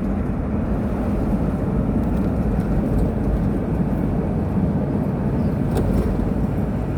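Car driving on the road, heard from inside the cabin: a steady low rumble of engine and tyres.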